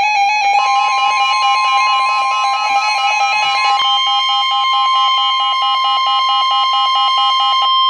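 Emergency Alert System alert tones: a loud, rapidly pulsing electronic tone, joined about half a second in by a steady higher tone. Near the end the pulsing stops and only the steady tone is left; this alarm signals a severe thunderstorm warning about to be read.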